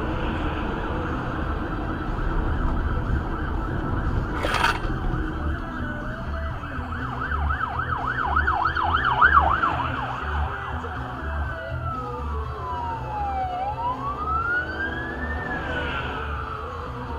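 Police car siren: a fast yelp of quick up-and-down sweeps about seven seconds in, then a slow wail rising and falling over several seconds, heard over a low steady rumble inside a stopped car. A single sharp click sounds about four seconds in.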